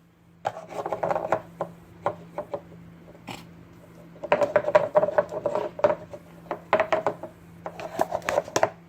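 Ice cream being scooped and packed into a plastic cup: clusters of knocks and scrapes against the cup, in several bursts.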